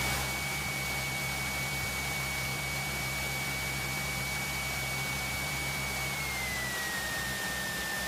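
Cessna 172's piston engine running at low power, heard as a steady drone from inside the cockpit, with a thin high whine that drops slightly in pitch about six seconds in.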